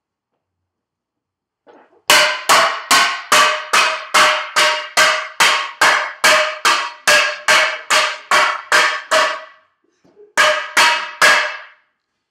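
Loud, even banging on something that rings, about two strikes a second, each with a short ringing tone: a run of about eighteen strikes, a brief pause, then three more. It is a deliberate wake-up noise.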